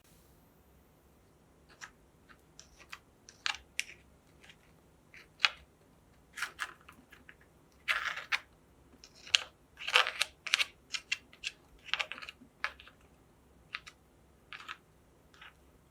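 Wafer ice cream cones crunching and crackling in irregular crisp bursts, busiest in the middle, with a few longer crackly crunches.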